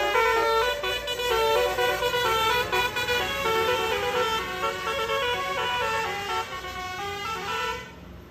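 Bus 'basuri' (telolet) musical air horns playing a quick tune of changing notes. The tune fades and stops about eight seconds in.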